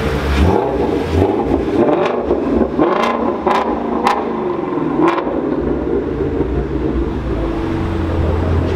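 Ford Mustang Shelby GT350's 5.2-litre flat-plane-crank V8 running as the car rolls slowly into a garage. There are a few sharp pops from the engine or exhaust around the middle, then it settles to a steady idle.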